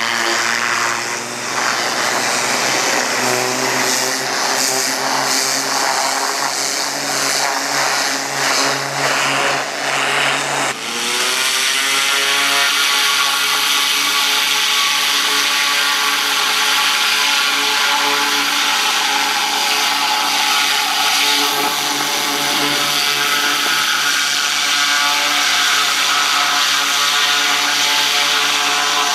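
A pressure washer's 14 HP Kohler gasoline engine runs steadily while the high-pressure water jet hisses against mud-caked excavator tracks. About ten seconds in, the engine note rises and then settles at a steady higher pitch.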